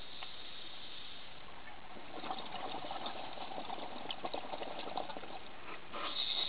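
Scuba diver breathing through a regulator, heard through the camera housing. A hiss fades at the start, then exhaled bubbles burble and crackle for about four seconds from about two seconds in, and the hiss of the next inhalation starts near the end.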